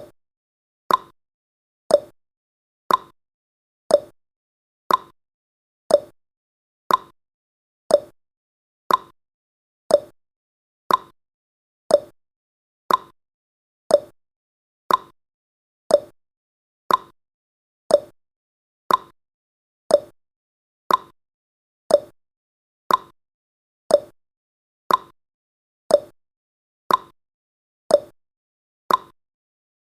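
Countdown timer's ticking sound effect: one short, sharp tick every second, evenly spaced, with silence in between.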